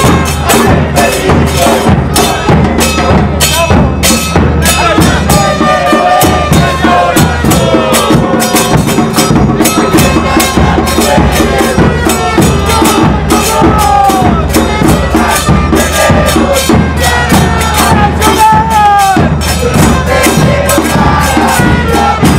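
A football supporters' street band playing: bass drums and other drums beating a fast, steady rhythm, with a trumpet playing a wavering melody over it.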